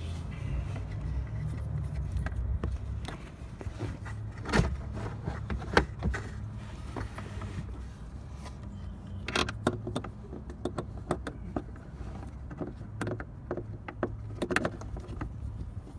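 Irregular light clicks, taps and rattles of a turn-signal bulb socket being handled and twisted back into its headlight housing, over a steady low hum.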